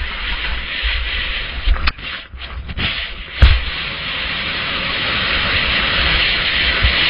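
Skis hissing over snow at speed while wind buffets the camera's microphone with a low rumble. There are a couple of sharp knocks, about two and three and a half seconds in, and the rushing grows steadily louder through the second half.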